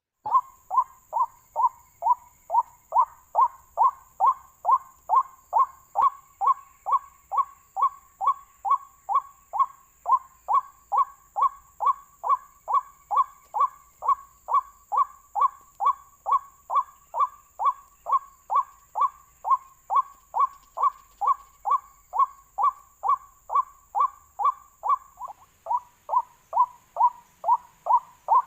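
Waterhen call used as a trapping lure: one short falling note repeated steadily, about twice a second.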